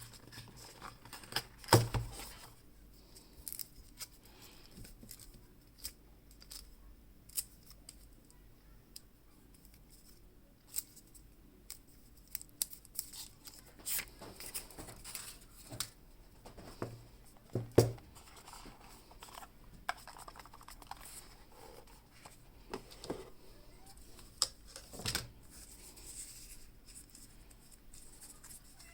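Hands handling a phone box and its packaging: scattered clicks, snips, taps and rustles, with louder knocks about 2, 18 and 25 seconds in.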